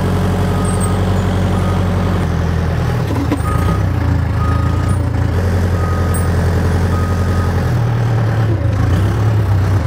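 Case backhoe loader's diesel engine running steadily under load while its front bucket works snow, with its reversing alarm giving short high beeps about once a second. The engine note shifts near the end as the bucket is raised.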